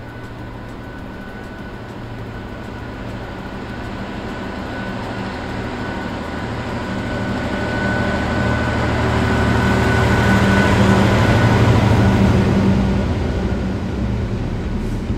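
Freightliner Class 66 diesel-electric locomotive, with its two-stroke V12 diesel, hauling a container freight train past. Its low engine drone grows steadily louder as it approaches, is loudest about ten to twelve seconds in, then eases as it passes, with a thin high whine over it.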